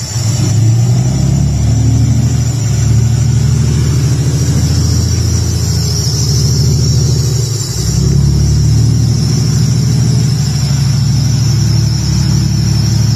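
Motor vehicle engine running steadily: a low drone with a short dip about seven and a half seconds in.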